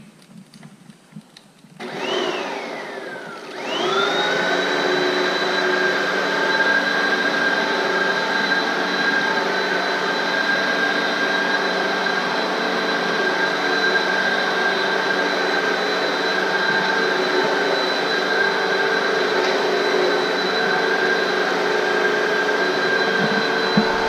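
Hoover upright vacuum cleaner switched on about two seconds in, its motor whine sliding down in pitch as it cuts out. It starts again near four seconds, spins up, and runs with a steady high whine.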